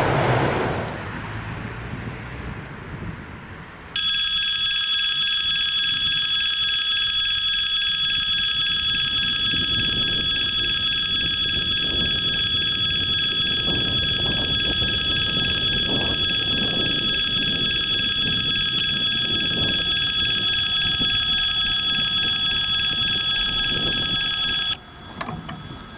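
Level-crossing warning bell ringing steadily, a loud metallic ringing that starts abruptly about four seconds in and cuts off shortly before the end. Before it starts, the noise of a passing train fades away.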